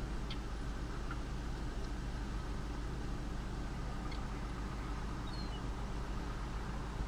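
Steady low rumble of a car heard from inside its cabin, with a few faint short high chirps.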